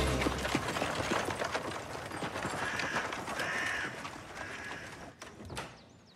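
Hooves of a pair of horses clip-clopping as they pull a horse-drawn carriage, the carriage rattling along with them; the sound grows fainter about four seconds in.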